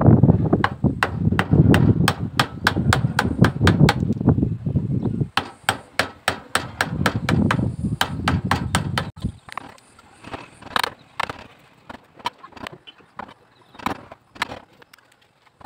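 A chisel being driven into a wooden handle blank with quick hammer blows, about three a second, splitting off the blocks between saw cuts. For the first nine seconds a loud low noise runs underneath; after that the blows are quieter and further apart.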